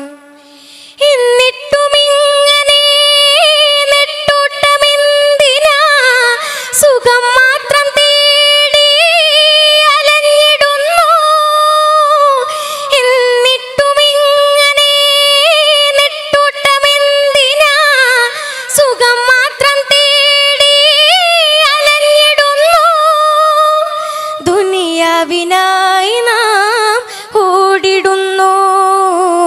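A single high solo voice singing a Malayalam devotional song (bakthiganam), with long held, ornamented notes that waver and slide in pitch. The singing comes in about a second in and moves to a lower register near the end.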